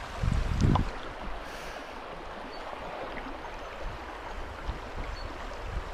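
Creek water rushing steadily over stones, with a brief louder low rumble in the first second.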